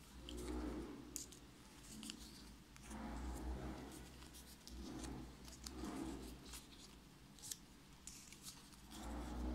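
Die-cut paper stickers and their clear plastic bag being handled: light crinkling and small sharp clicks. A soft low swell comes and goes every two to three seconds.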